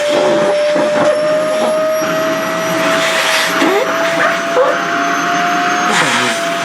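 SHARP EC-KP7F-A vacuum cleaner running with a steady whine that slowly rises in pitch, over a rushing hiss, with short wavering squeals as its nozzle sucks at a dress.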